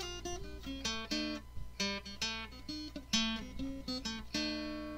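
Background music on acoustic guitar: a run of plucked notes and strummed chords, with a last chord near the end that rings on and fades.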